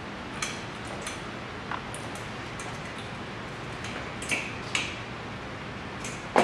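A handful of light clicks and taps as the metal frame and woven back of a wicker patio chair are handled and fitted together, the two loudest a little past the middle, over a steady hiss.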